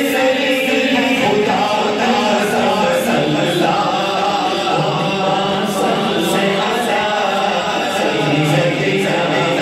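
A man's voice singing an unaccompanied Urdu devotional chant (naat) into a microphone, in long held, melismatic notes.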